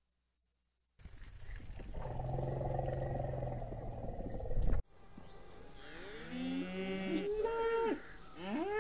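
An elephant's low, steady call lasting about three seconds that cuts off abruptly, followed by cows mooing: several drawn-out moos that rise and fall in pitch, partly overlapping.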